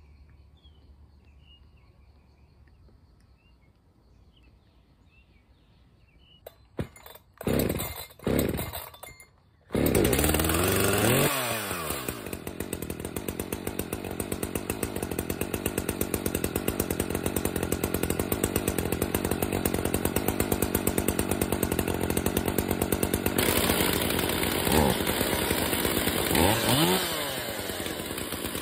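Two-stroke chainsaw pull-started: three short pulls on the starter cord, and on the third it catches about ten seconds in. It runs fast at first, then drops to a steady idle, with two quick throttle blips near the end.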